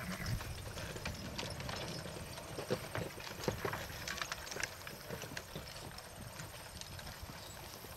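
Horses' hooves clip-clopping at a walk, from a team pulling a covered wagon and saddle horses alongside. The hoofbeats are irregular and get a little quieter toward the end.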